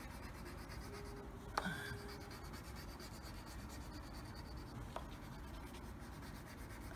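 Wax crayon rubbed back and forth on paper, faint scratchy scribbling as the background is coloured in, with a couple of light clicks.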